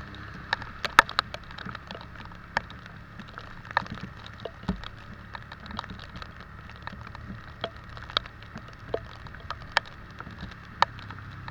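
Raindrops tapping sharply and irregularly on a hard surface close to the microphone, a few hits a second, over the steady hum of a motorcycle riding in the rain.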